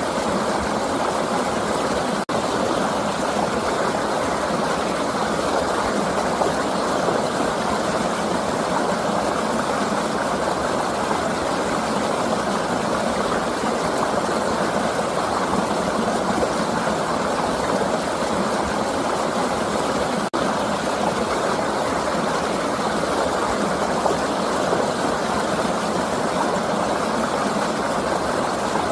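River water flowing in a steady rushing stream, even and unbroken apart from two very brief dropouts.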